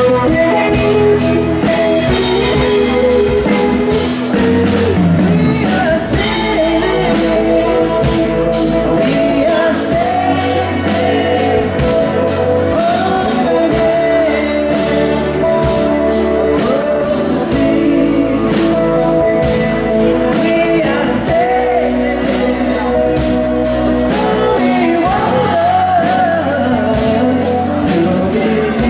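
A live band playing a song: acoustic guitars, electric bass and drums under sung vocals, with a woman singing lead and a man singing with her, in a large room.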